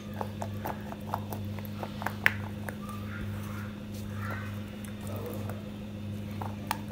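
Boiled potato strips being tossed in flour by hand on a steel plate: scattered light clicks and taps of fingers and potato against the metal, over a steady low hum.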